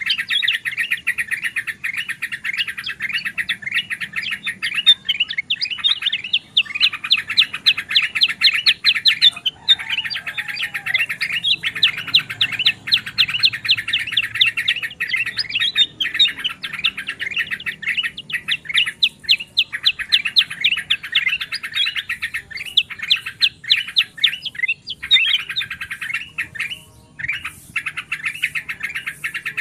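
A dense chorus of bulbuls chattering: rapid, overlapping high chirps, with a few brief lulls. The mix is a bird-trapping lure recording of yellow-vented bulbul and other bulbul species.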